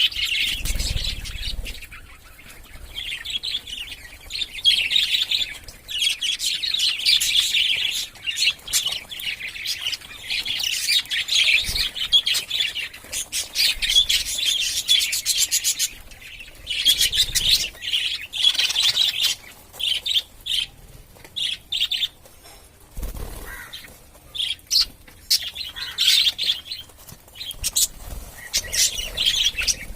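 Pet budgerigars chattering: busy runs of rapid chirps and warbling in bursts of a few seconds with short pauses, plus a few low thuds.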